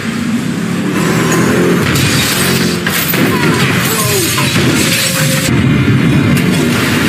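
Action-movie soundtrack: a dramatic score under crashes, impacts and shattering glass.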